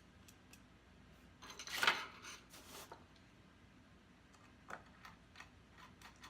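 Hands handling small computer parts: a short scraping rustle about two seconds in, then a few light, scattered clicks.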